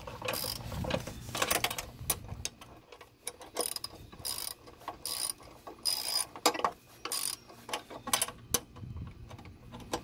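Hand socket ratchet clicking in short runs, one run every second or so, as its handle swings back between strokes while the running-board bracket bolts are torqued down.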